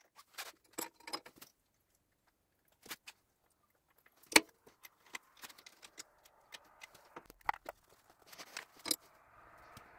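Scattered metallic clicks and clinks of a spanner and fittings as a cast aluminium water inlet is bolted to a diesel engine block and a hose is pushed on and clamped, with one sharper knock about four seconds in.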